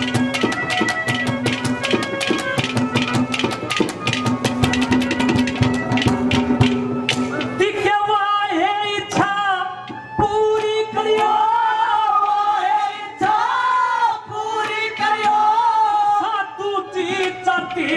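Live Haryanvi ragni: fast hand drumming over sustained held notes from the accompanying band, then a male singer comes in about eight seconds in, singing in long wavering phrases over the drumming.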